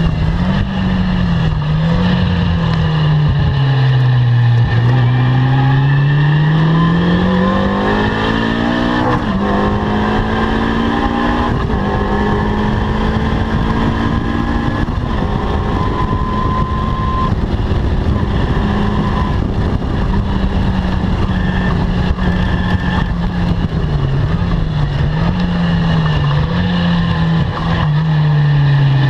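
Caterham R300 sports car's engine running hard at circuit pace. Its pitch drops to a low about four seconds in, climbs steadily and holds high for a long stretch, wavers up and down later, and falls again near the end.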